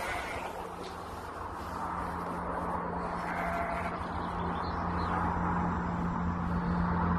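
Diesel engine of an Irish Rail Class 22000 railcar running with a steady hum, growing gradually louder.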